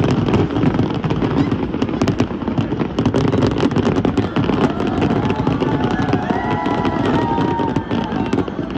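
Fireworks going off in a dense, continuous barrage of bangs and crackles.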